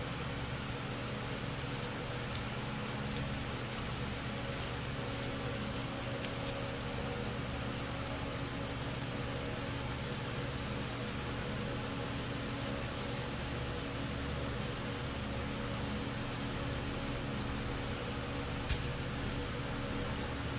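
Steady low hum with hiss, even throughout, and a single short click near the end.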